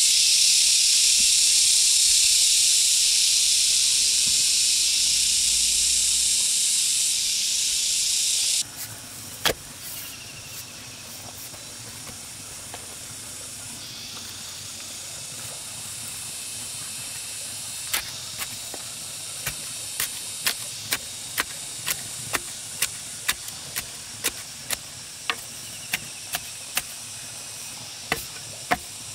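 A loud, steady high-pitched insect drone cuts off suddenly about a third of the way in. Later, a wooden pole tamps the soil packed around the base of a bamboo post, giving short knocks about twice a second over the last ten seconds.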